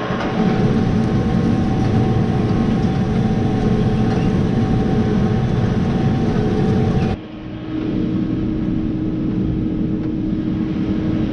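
Tractor engine running steadily under load while pulling a disc harrow. About seven seconds in, the sound cuts abruptly to a slightly duller engine drone with one steady hum.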